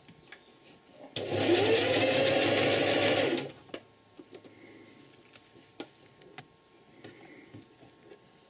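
Domestic sewing machine stitching a seam in one short run of about two seconds, its motor whine rising as it speeds up and then holding, with rapid needle strokes about ten a second. Faint scattered clicks before and after as the fabric is handled.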